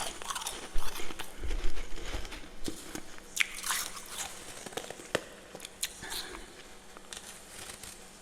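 Close-up crunching and chewing of powdery freezer frost, many sharp crackly bites that come thick at first and thin out toward the end.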